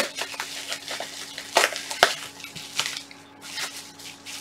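Handling and unpacking of a boxed power supply: rustling packaging with irregular sharp clicks and knocks, over a faint steady hum.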